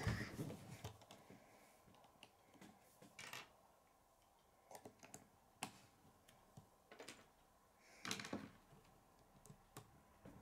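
Plastic K'nex pieces clicking and rattling as they are handled and snapped together, in scattered short clusters of clicks, the loudest at the start and about eight seconds in.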